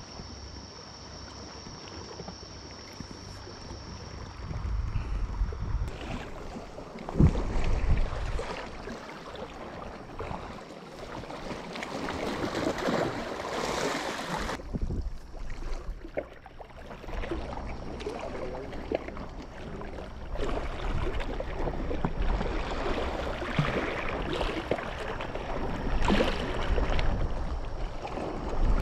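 Wind gusting on the microphone over water lapping, with scattered small knocks and clicks.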